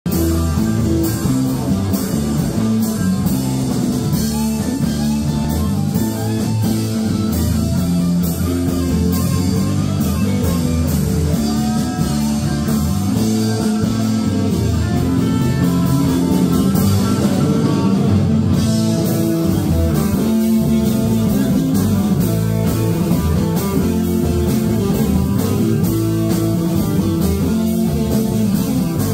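Live rock band playing a song at full volume: electric guitar over a steady drum-kit beat.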